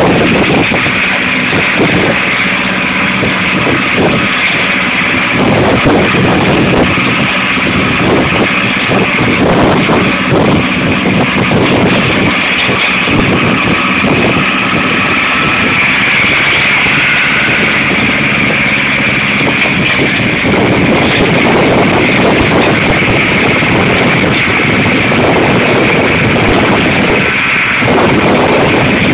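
Fiat 70-66 DTS tractor's diesel engine running steadily as the tractor drives along the road, mixed with gusty wind noise on the microphone.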